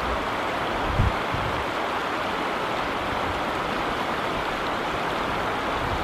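Shallow river running over a stony bed: a steady rushing hiss of water through the rocks. About a second in, a brief low rumble of wind buffets the microphone.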